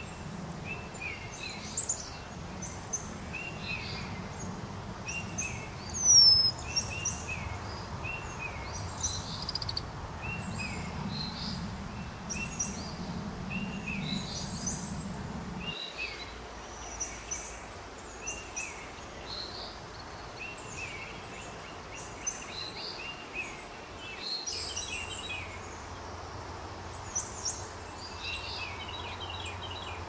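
Several small songbirds chirping and calling over a steady outdoor hiss, with one loud, high whistle gliding downward about six seconds in.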